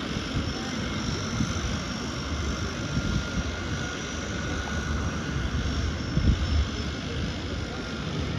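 Steady engine drone with a faint high whine over it, and irregular low buffeting.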